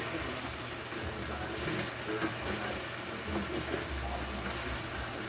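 Hamburger patties sizzling steadily in a frying pan.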